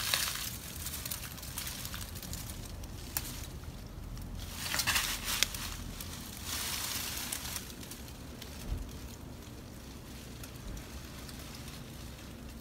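Faint outdoor background noise with a few short rustles, a click about three seconds in and a soft knock near nine seconds.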